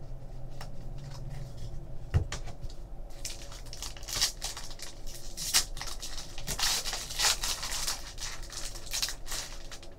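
Foil trading-card pack wrapper crinkling and tearing as it is ripped open, a dense crackling rustle from about three seconds in almost to the end. Before it, a few light clicks of cards being squared and set down.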